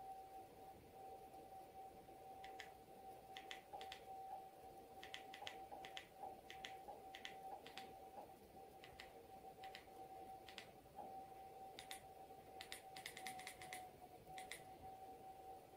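Faint clicks of remote-control buttons pressed one at a time and in quick runs, the densest run near the end, over a steady faint hum.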